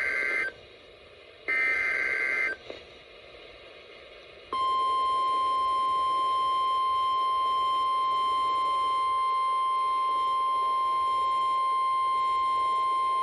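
Emergency Alert System SAME header: two bursts of warbling digital data tones, about a second each and a second apart. Two seconds later comes the steady single-pitch 1050 Hz NOAA Weather Radio alert tone, held for about nine seconds, announcing a new severe thunderstorm warning.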